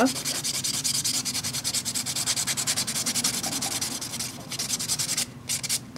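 A pink sponge nail buffer block rubbed in quick, even back-and-forth strokes over a cured gel nail, a rapid scratchy rasp, as the gel surface is lightly buffed smooth for top coat. The strokes break off into a few separate rubs about five seconds in.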